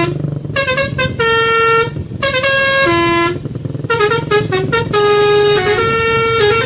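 Telolet basuri multi-tone bus air horn playing its tune: a loud melody of held notes stepping up and down, in three phrases with short breaks between them.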